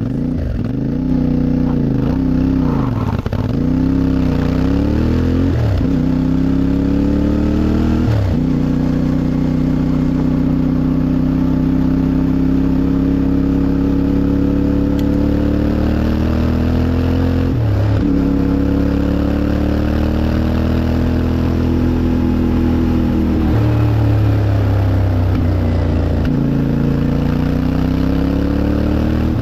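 CFMOTO 450MT motorcycle's parallel-twin engine pulling away and accelerating through the gears. The revs rise and fall back with several shifts in the first eight seconds, then hold mostly steady, with a couple more gear changes later.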